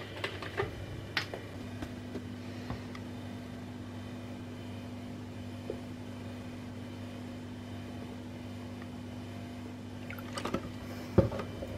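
Milk poured from a carton into a mug of tea, the pour faint under a steady low hum. A few light knocks come in the first seconds, and a louder clatter of carton and mug near the end.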